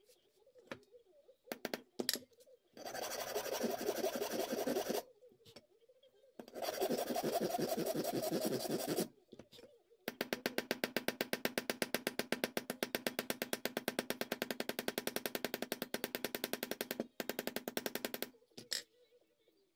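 A small hammer tapping rapidly on the end of a metal pin through a straight razor's wooden scales, peening the pin over its washer against a hammer head used as an anvil. The taps come in quick, even runs: two short runs, then a long steady run with a brief pause near the end.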